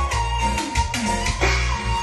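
Dance music with drums, a heavy bass line and a sustained lead melody that slides in pitch.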